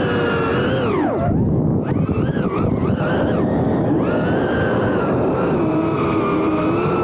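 FPV quadcopter motors whining over a rush of wind noise. About a second in the whine drops sharply as the throttle is cut, then rises and wavers quickly up and down for about two seconds with throttle changes, before settling into a steady whine.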